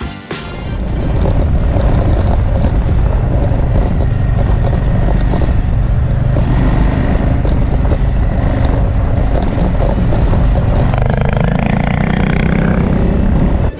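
Adventure motorcycle riding: steady engine note under heavy wind rush on the camera microphone, with the engine rising in pitch near the end as the bike speeds up.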